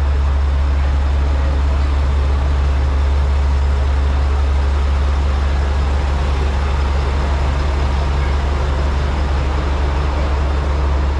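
Diesel engines of the Kawasemi Yamasemi, a converted KiHa 47 railcar, idling at the platform: a steady, loud low drone.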